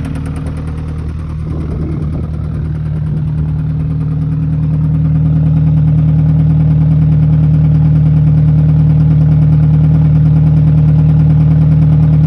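Alfa Romeo 156 1.8 engine running at a steady idle with a rapid, even knock from inside the engine. It grows louder a few seconds in.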